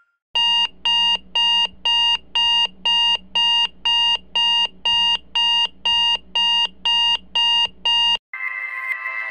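HTC Sense 4 alarm tone: a short electronic beep repeated evenly about twice a second, sixteen beeps in all. It stops near the end, and an electronic music alarm tone begins.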